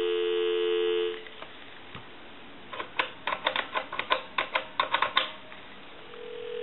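Telephone dial tone on the line, a steady two-note hum that cuts off about a second in. Then the Western Electric 10-key touch-tone desk telephone's keypad dials a number: a quick run of about ten short touch-tone beeps. A steady tone from the line starts near the end.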